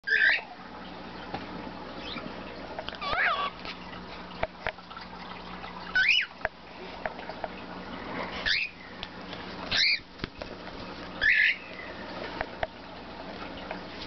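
Cockatiel calls: about six short chirps that slide up and down in pitch, spaced a second or two apart, with faint clicks between them.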